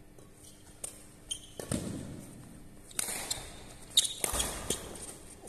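Badminton rally: racket strings popping sharply against the shuttlecock, with sneakers squeaking and footsteps on the hall's court floor between hits.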